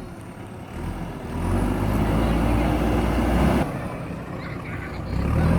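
JCB backhoe loader's diesel engine revving up under load, easing off suddenly a little past halfway, then picking up again near the end.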